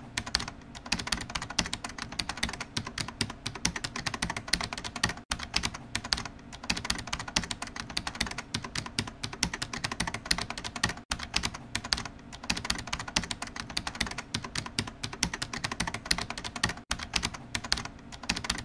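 Rapid typing on a computer keyboard, a dense run of many keystrokes a second, with a brief break about every five to six seconds; it stops abruptly at the end.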